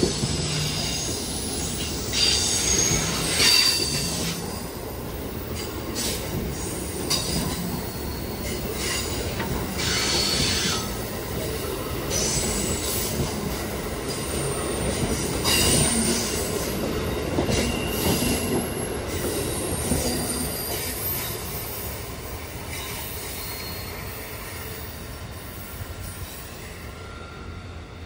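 Passenger train cars rolling past on curving track, with a steady rumble and repeated high-pitched wheel squeals. The sound fades away over the last several seconds as the train moves off.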